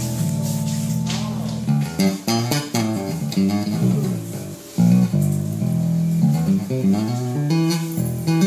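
Bass guitar playing a melodic line: a held low note, then a run of quick plucked notes with sliding bends in pitch.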